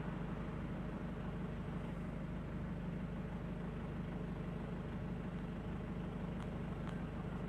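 Car engine running, heard from inside the cabin as a steady low hum.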